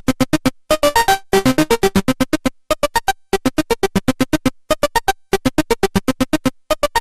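Sequenced synthesizer arpeggio from a DIY 101-VCO eurorack oscillator run through a CP3-type discrete mixer: rapid short staccato notes, about seven a second, changing in pitch, in phrases broken by brief pauses.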